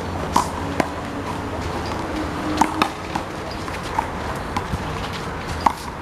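Sharp smacks of a rubber handball during a one-wall handball rally: about half a dozen at uneven intervals, over a steady low hum.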